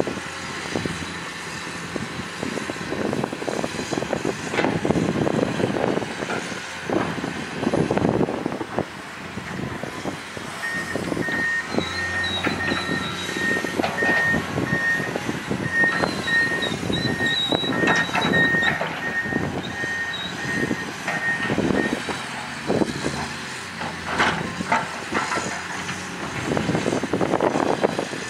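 Komatsu PC210 hydraulic excavator working in sand: its diesel engine running under load, with the bucket scraping and clanking in repeated knocks. From about ten seconds in, a backup-style alarm beeps steadily, about two beeps a second, for roughly ten seconds.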